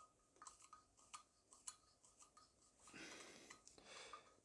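Faint scattered clicks and ticks of a small screwdriver turning a brass jet into the threads of a Carter WO carburetor body, with two brief soft hisses about three and four seconds in.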